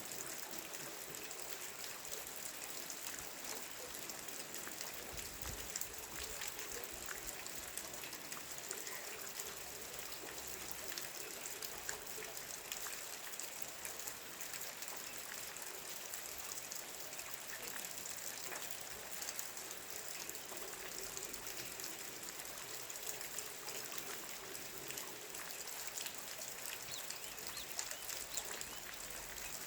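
Steady rain falling, with many small drops ticking and a light trickle of running water.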